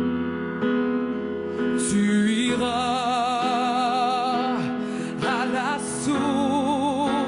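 A woman singing a slow French ballad, holding long notes with a wide, even vibrato, with a short rising run in between, over a steady sustained backing chord.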